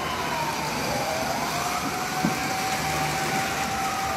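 Fire truck sirens wailing, at least two at once, their pitches gliding down and up, with one holding a steady tone for a couple of seconds. They sound over a steady rush of background noise.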